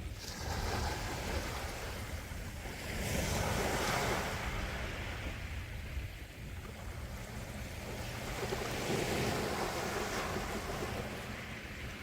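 Calm sea waves washing in, a continuous rush of surf that swells louder about three seconds in and again around nine seconds as waves break.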